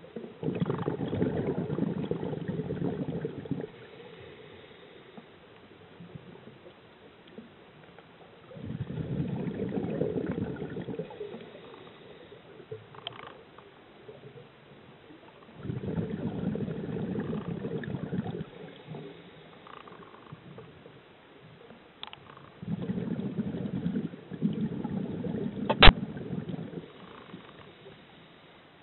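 A scuba diver breathing through a regulator: four bubbling exhalations come about every seven seconds, with quiet inhalations between. About 26 seconds in there is one sharp click, the loudest sound here.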